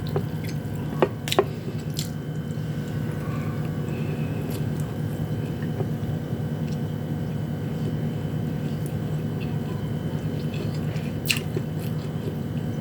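Close-up mouth sounds of chewing a mouthful of sardines and rice, with a few sharp clicks near the start and again about 11 seconds in, over a steady hum.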